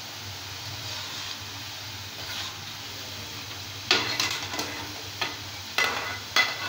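Boondi, small drops of gram-flour batter, sizzling steadily in hot oil in a steel kadai. From about four seconds in, a metal ladle stirs and turns them, scraping and clinking against the pan about six times.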